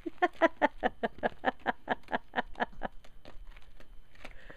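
A woman laughing: a quick, even run of ha-ha pulses, about six a second, falling in pitch and fading out over about three seconds.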